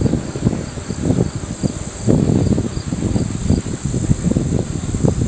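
Steady high-pitched drone of insects, under a louder, uneven low rumble from the exhaust of Norfolk and Western 611, a J-class 4-8-4 steam locomotive, working toward the camera in the distance.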